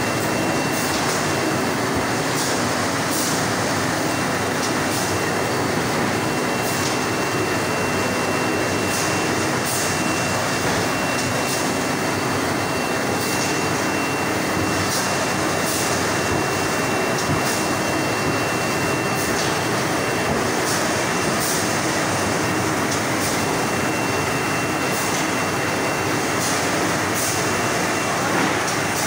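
Automatic 5-ply corrugated board pasting machine running steadily, a continuous loud mechanical din of rollers and conveyor belts. A thin high whine runs through it and drops out about two-thirds of the way in, and light ticks come every second or two.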